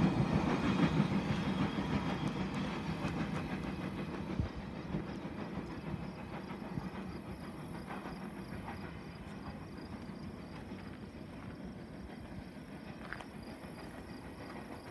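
Rumble and wheel clatter of a CN double-stack intermodal freight train's rear cars rolling away down the track, fading steadily, with a few faint clicks along the way.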